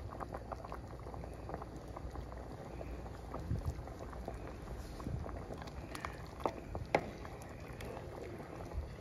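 Pot of water at a rolling boil with pasta shells in it, a steady bubbling full of small pops. A couple of sharper clicks stand out about six and a half and seven seconds in.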